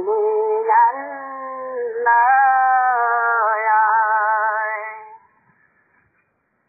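A solo voice singing a song unaccompanied, in long held notes with a wavering vibrato, trailing off about five seconds in; a brief click near the end.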